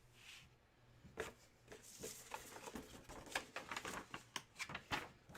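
Faint handling noise of packaging being opened: a quick run of small clicks, crackles and crinkles, with a brief rustle or tear about two seconds in.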